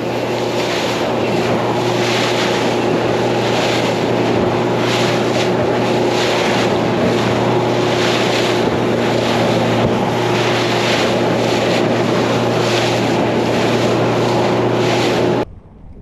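Fishing boat's outboard motor running steadily at speed, with spray and wind noise as the hull cuts through choppy water in regular surges. It cuts off suddenly near the end.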